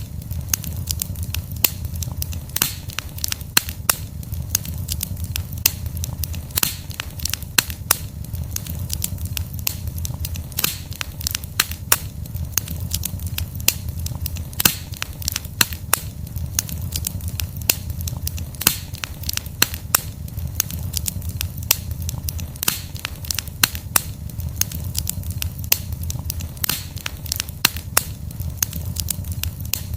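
Wood fire burning: burning logs crackling with frequent irregular sharp pops over a steady low rumble of flames.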